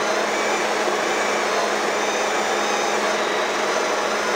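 Hobart Handler 175 MIG welder switched on with the gun trigger held: a steady machine whir with a low, constant hum. The wire-feed motor's voltage is sagging, which the owner puts down to a fault on the control board.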